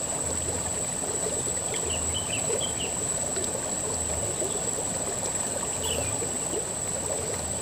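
Shallow river running over gravel and stones: a steady rush of flowing water. A steady high-pitched whine runs through it, and a few faint high chirps come about two seconds in and again near six seconds.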